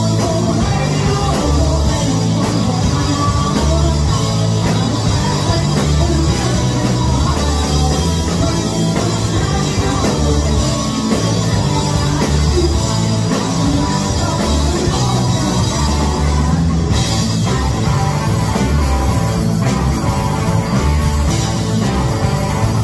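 Live rock band playing loudly: distorted electric guitars over a driving drum kit and bass, with a woman singing lead.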